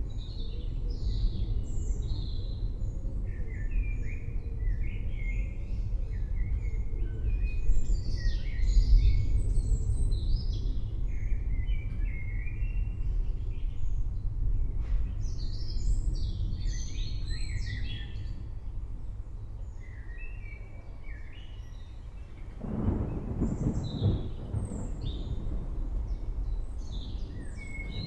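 Low rolling thunder rumbling continuously, swelling in the middle and again in a louder burst near the end, while birds chirp and twitter throughout.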